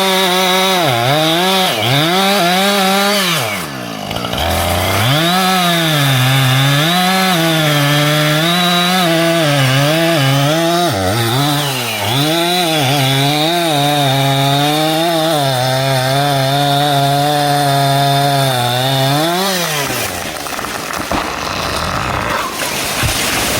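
Two-stroke chainsaw cutting into a sugar maple, its engine pitch repeatedly dipping under load in the cut and picking back up, until the saw winds down near the end.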